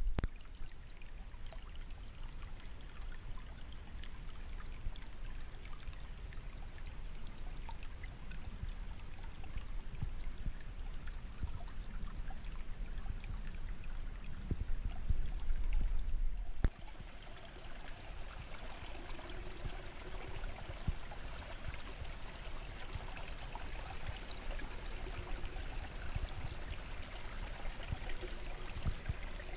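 Shallow creek water trickling over rocks. For the first half there is also a low rumble; a little over halfway the sound changes abruptly and the trickle becomes clearer and brighter.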